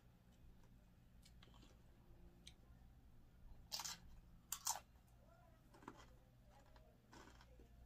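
Faint chewing and crunching of a tortilla chip, with two sharper crunches about four seconds in and a few softer ones after.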